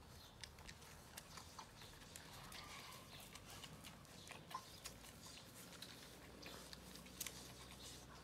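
Puppies suckling at their mother's teats: faint, irregular wet clicks scattered through a low background hush.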